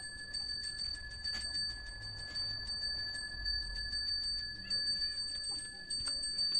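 A hand bell rung continuously and fast, the Balinese priest's genta used in offering rites: a quick, even run of clapper strikes over a steady high ringing tone.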